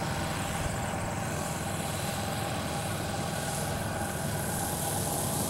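Engines of a large four-engine radio-controlled scale bomber model running throttled back on its landing approach, a steady drone.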